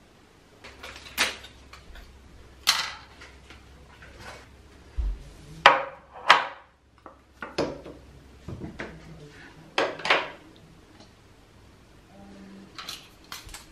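Small toiletries and glasses being set down one by one on a hard tiled bathroom counter: about a dozen separate sharp clicks and knocks, the loudest about six seconds in.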